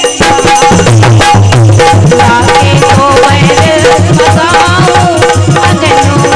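Bundeli devi geet (folk devotional song) played live: a woman singing over steady harmonium notes, with a hand drum beating a quick, even rhythm.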